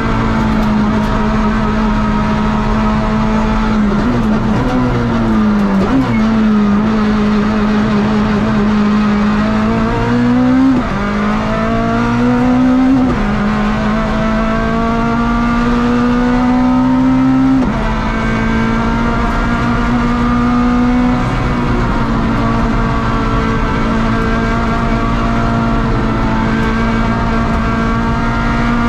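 Rally car engine heard from inside the cockpit, driven hard. Its pitch climbs and then drops sharply at gear changes about 11, 13 and 18 seconds in, and falls away during a slowdown around five seconds in.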